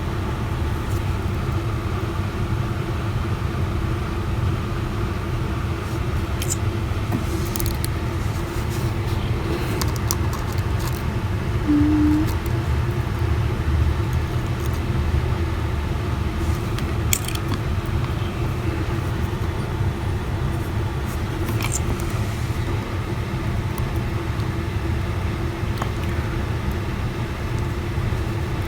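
Scattered small sharp clicks and metallic taps from small tools and tiny screws handled while the iPhone's screen bracket goes back on, over a steady low background hum.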